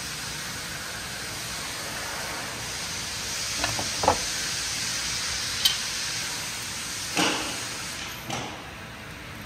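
A steady hiss of background noise with a few light clicks and taps of small metal parts and tools being handled, spread through the middle and later part.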